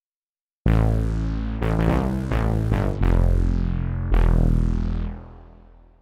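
Wavesequencer Theia software synthesizer playing its CheeseStack layered preset, a bright, fat patch. It plays a short phrase of about six chords, each struck with a sharp, bright attack that fades quickly over deep sustained bass notes. The phrase begins about half a second in and dies away near the end.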